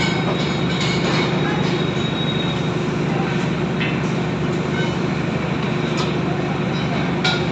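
Heavy construction machinery running with a steady low drone, with a few sharp metallic clicks and knocks over it.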